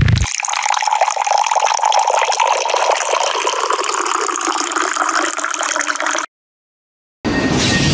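Toilet flush sound effect: rushing, gurgling water that runs for about six seconds and then cuts off suddenly, right after a loud low thump at the very start. A new loud, noisy whoosh begins near the end.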